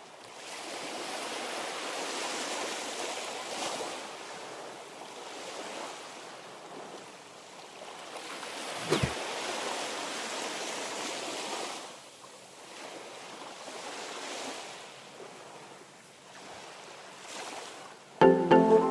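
Sea waves washing in and drawing back in slow swells. A quick downward-gliding swoosh comes about halfway through, and music starts near the end.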